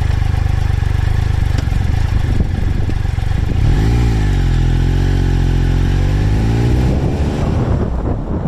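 Triumph Tiger Explorer 1200's three-cylinder engine running with a steady low rumble. About halfway through, the revs rise and hold for a few seconds, then drop away near the end.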